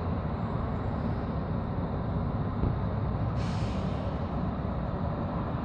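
Steady low rumble of outdoor city ambience, with a short hiss about three and a half seconds in.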